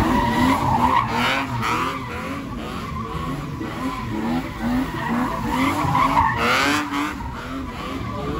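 Red BMW E30 doing a donut burnout, its rear tyres spinning and squealing on the pavement while the engine is held at high revs. The engine note rises and falls about twice a second as the car circles, with louder rising sweeps about a second in and again near six seconds.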